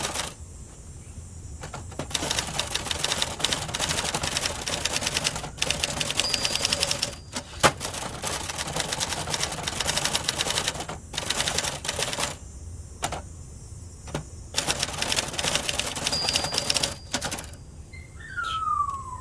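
Typing on a 1970s Adler Gabriele 25 manual typewriter: runs of rapid key strikes broken by short pauses, with one single sharp knock about seven and a half seconds in. A short falling call sounds near the end.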